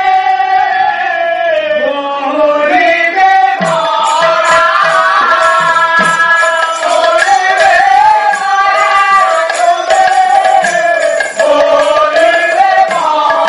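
Male voices singing a devotional Odia Pala song. About three and a half seconds in, a barrel drum (mrudanga) and small hand cymbals come in, keeping a steady beat under the singing.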